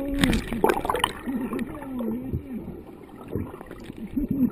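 Water sloshing and gurgling around a camera held just under the surface, with muffled voices of people close by coming through the water.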